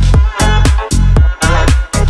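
Hip-hop backing music: a steady beat of heavy, deep bass kicks, with no vocals.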